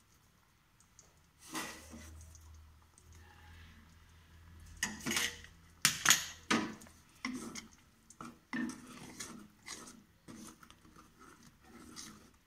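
Kitchen utensils clinking and scraping against a metal kadai as salt is added to a thick gravy and stirred in with a wooden spatula: a string of sharp clinks and scrapes, loudest about five to six seconds in, then lighter clicking.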